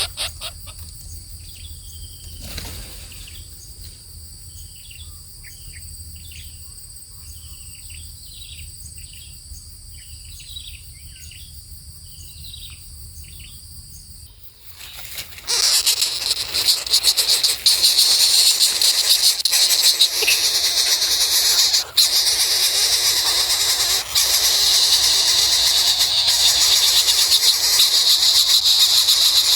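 Insects trilling with a steady high tone, over a run of short, falling bird chirps repeated about once a second. Just past halfway, a much louder, dense high-pitched insect buzz starts abruptly and carries on steadily.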